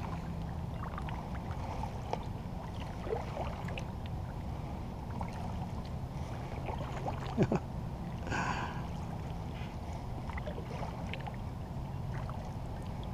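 Kayak paddle strokes in calm water: the blades dipping, with small splashes and drips, over a steady low rumble. A couple of sharp knocks come about halfway through.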